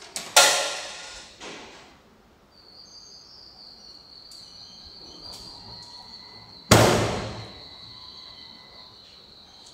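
Spiral snack-and-drinks vending machine dispensing: a couple of clunks about half a second in, a faint steady high whine through the middle, then a loud thud near seven seconds as an item drops into the delivery bin.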